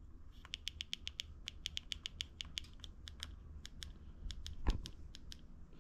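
Rapid runs of small plastic clicks from the buttons of a UKC1 e-bike display's handlebar control pad, pressed over and over to step the pedal-assist level up and down. A single low thump comes about three-quarters of the way through, over a steady low hum.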